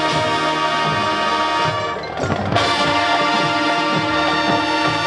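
High school marching band playing a Motown arrangement: brass holding full chords over drumline hits, with a short break about two seconds in before the next loud chord.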